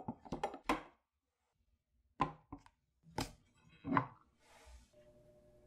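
Plastic food storage container being handled: a quick run of clicks and knocks as the lid is pressed on in the first second, then a few separate knocks as containers are set down and stacked.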